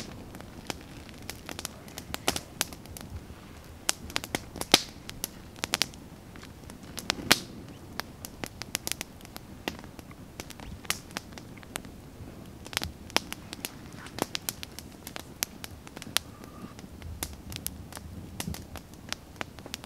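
Small wood campfire crackling, with irregular sharp pops and snaps.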